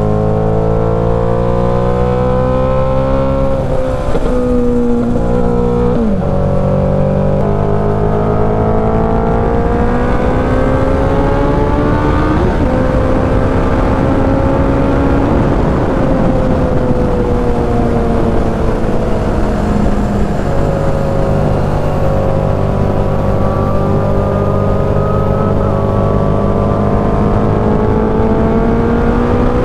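Suzuki Hayabusa's inline-four engine running under way, its note slowly rising and falling as the throttle changes, with wind rush over the bike.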